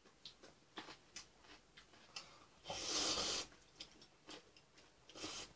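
Eating sounds from ramen: small wet clicks of chewing and chopsticks on the bowl, with a slurp of noodles lasting under a second about halfway through and a shorter one near the end.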